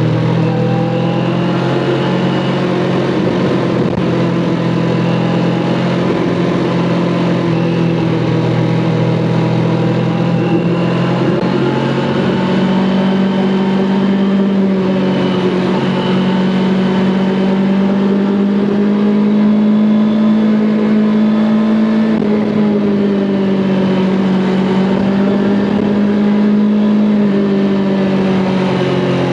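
Kawasaki Ninja 400's parallel-twin engine running steadily while riding, its note climbing in pitch about a third of the way in, rising a little more, then dipping and rising again as the throttle changes.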